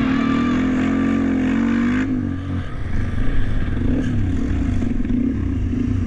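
Dirt bike engine running as the bike rides across sand. For about two seconds the revs hold steady and rise a little, then they fall away and the engine runs on rougher and less steady at lower revs.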